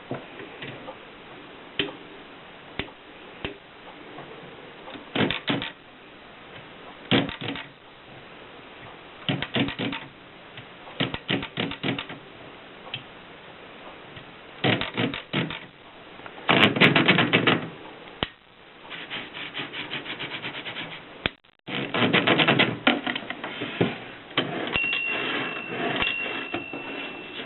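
Torpedo typewriter being typed on: irregular keystroke clacks, some single and some in quick runs, with short pauses between words and lines.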